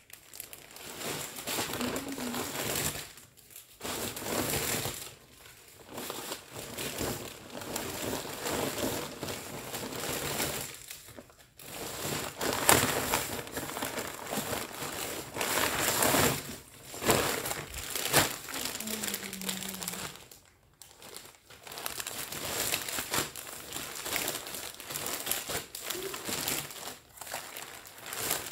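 Plastic packaging bags crinkling and rustling as clothes are pulled out and handled, in stretches of several seconds with short pauses between.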